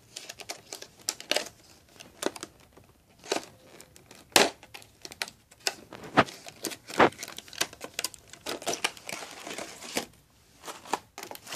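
Stiff clear plastic blister packaging being handled and pried open: irregular crinkles, cracks and snaps, with a denser stretch of rustling about three quarters of the way in.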